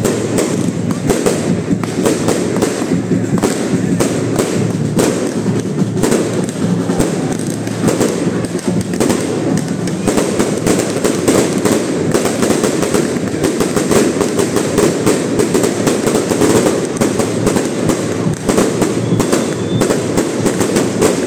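Firecrackers crackling in a rapid, unbroken string over the din of a large crowd.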